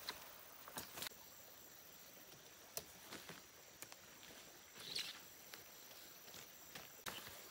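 Quiet outdoor ambience with a few light rustles and scuffs, the loudest about five seconds in, over a faint steady high hiss.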